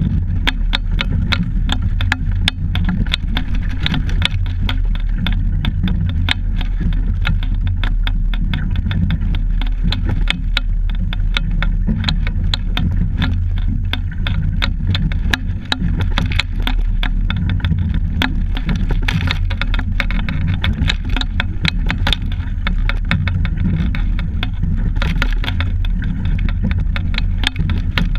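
Steady low rumble with constant clicking and rattling, picked up by a camera mounted on a rowing double scull: wind on the microphone and the mount shaking as the boat moves through the water.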